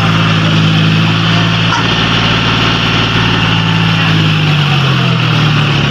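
John Deere 5036D tractor's three-cylinder diesel engine running hard while hitched to a loaded brick trolley, a tractor its owners say has no pulling power. About four seconds in its pitch sags a little as the engine lugs.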